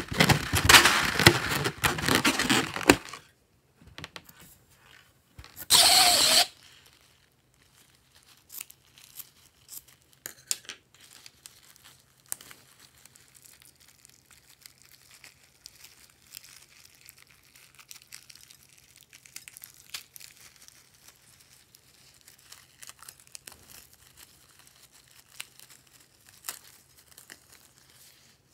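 Rubber balloon full of small beads and sprinkles being squeezed and rubbed in the hands: a dense crinkling rustle for the first three seconds and a short loud burst of rubbing about six seconds in. After that, faint scattered clicks and crackles as the sprinkles are squeezed out of the balloon onto slime.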